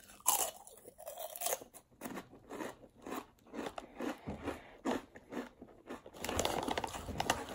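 A person biting into and chewing a thick, deep-ridged kettle-cooked potato chip (Ruffles Double Crunch), a run of short crisp crunches that grows denser near the end.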